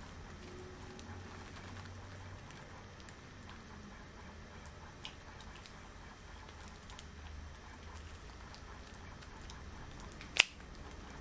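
Extra-long latex gloves being handled: faint rubbing and crackling of the latex, with one sharp snap near the end.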